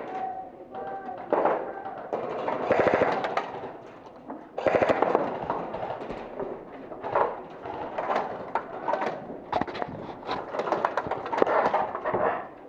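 Airsoft electric rifles firing in rapid full-auto bursts, several runs of quick cracks with short pauses between.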